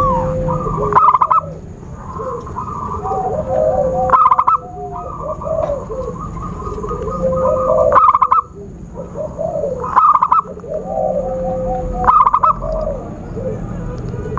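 Zebra doves (perkutut) cooing, their phrases overlapping. A loud cluster of quick staccato notes comes about every two seconds, with softer, lower coos in between.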